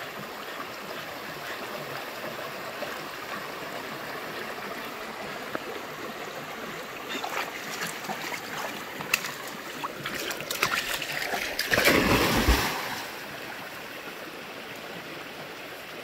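Creek water running over rocks in a shallow riffle, a steady rush. From about seven seconds in, a dog splashes through the water, the splashing growing and loudest around twelve seconds as it goes from wading among the rocks to swimming in the deep pool.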